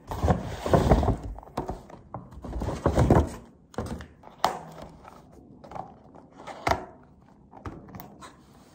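Takeout food being unpacked from a paper bag: rustling paper and several dull knocks as a plastic container and a cardboard box are set down on a table, busiest in the first three seconds, then scattered lighter taps.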